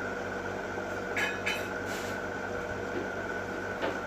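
A steady machine hum with several fixed tones, broken by a few light knocks and clicks, two close together about a second in, another near two seconds and one near the end.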